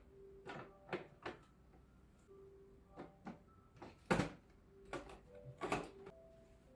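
A series of about ten clicks and knocks from objects being handled and unpacked, the loudest about four seconds in.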